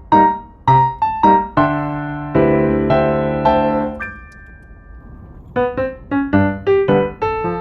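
Background piano music: a quick run of single struck notes, then held chords, a lull of about a second and a half while a note rings out, and then the melody picks up again.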